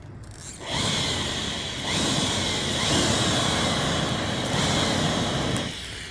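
A small motor whirring loudly for about five seconds, with a few short rises in pitch, starting and cutting off suddenly.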